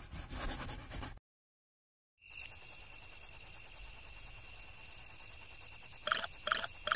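A faint sound ends about a second in and a second of silence follows; then crickets chirr steadily in a rapid high pulsing. From about six seconds, three short pitched animal calls sound in quick succession over the crickets.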